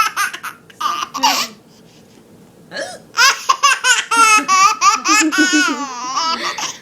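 Hard, high-pitched laughter in quick bursts, stopping for about a second before breaking out again in a long run of laughs.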